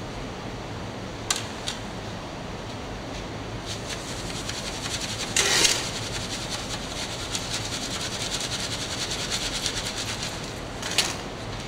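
Hand riddle sifting foundry moulding sand into a casting flask. A few knocks early on, a short loud rush about halfway through, then several seconds of fast, even rattling as the sieve is shaken, and one more knock near the end.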